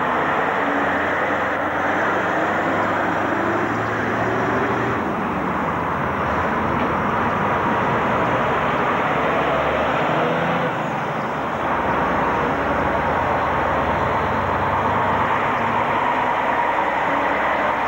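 Diesel engines of articulated lorries, Scania and Renault Magnum tractor units, running as they pull slowly past one after another.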